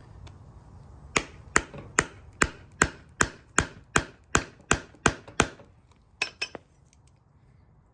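Hammer striking a window crank's stamped metal knob retainer, twelve steady blows at about two and a half a second, then three quicker, lighter taps near the end. The blows are bending the lip around the washer to break it off and free the old knob.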